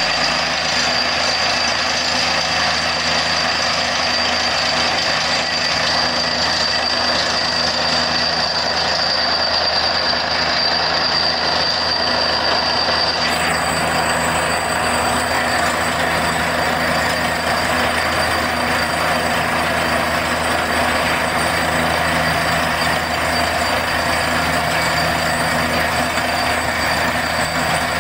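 Truck-mounted borewell drilling rig running while drilling a well: a loud, steady machine noise with a thin high whine over it, changing slightly about halfway through.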